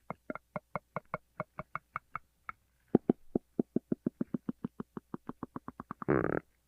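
A person's stomach growling: a long run of small gurgling pops that slows, pauses briefly, then picks up again at about six a second, ending in a short buzzy rumble near the end.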